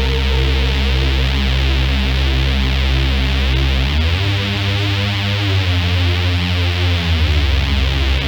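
Electronic dance music with synthesizers and a drum machine; about four seconds in the low bass drops out and a different bass line comes in.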